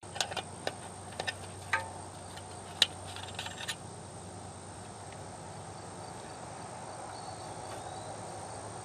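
Metal clinks and clicks of a wrench working a fuel-line compression nut on a diesel fuel filter housing, about eight irregular sharp ticks in the first few seconds, one louder than the rest. After that there is only a faint steady hiss with a low hum.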